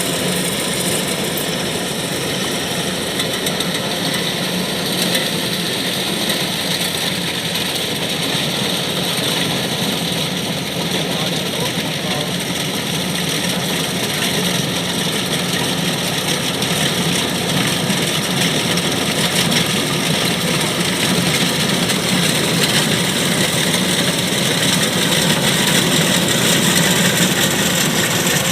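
Kubota DC-105X rice combine harvester running steadily, its diesel engine and machinery making a continuous drone that grows slightly louder near the end.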